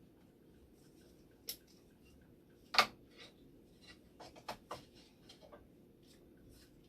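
A few short clicks and taps of small parts being handled, with one sharp, loud click about three seconds in and a quick run of lighter taps a little later.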